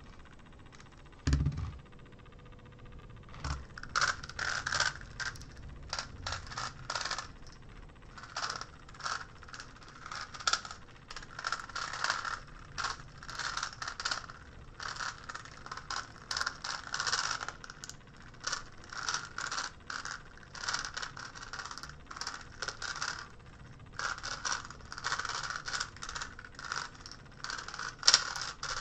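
GAN Megaminx being turned fast by hand in a speedsolve: rapid plastic clicking and clacking of its faces in quick runs with short pauses, after a single low thump about a second in.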